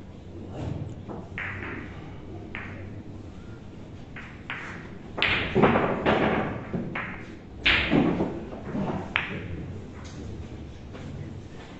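Billiard balls on a boccette table: a hand-thrown ball knocking into the other balls and the cushions, a string of sharp clacks and thuds from about five seconds in.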